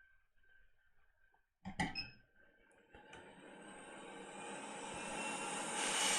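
A brief clatter about two seconds in, then from about three seconds a hot-air rework station's air stream hisses, growing steadily louder, as the chip's solder is heated for reflow.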